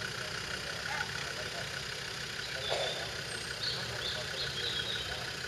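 Engine of an off-road 4x4 running steadily at low revs.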